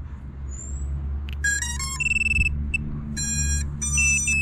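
The quadcopter's electronic speed controllers play their power-up beeps through the brushless motors as the battery is connected: several groups of short, clear electronic tones at different pitches, starting about a second and a half in. The tones sit over a steady low rumble.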